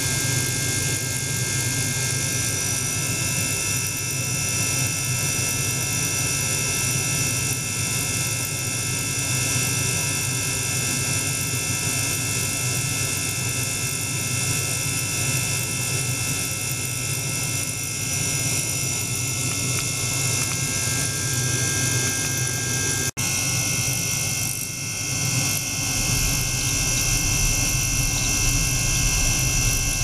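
Small ultrasonic bath and its water-circulation pump running: a steady hum and drone with several steady high whining tones above it. The sound cuts out for an instant a little past the middle, and a low rumble joins a few seconds later.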